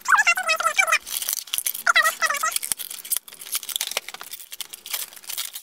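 Plastic shrink-wrap on a product box crinkling and tearing as it is peeled off by hand, a dense run of sharp crackles.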